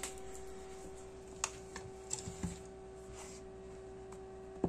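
A leather camera case being picked up and handled: a few light clicks and knocks, scattered irregularly, over a steady hum.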